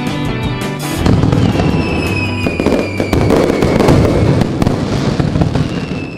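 Fireworks sound effect over background music: a run of pops and crackles, and from about a second and a half in a long whistle that slowly falls in pitch. It fades out near the end.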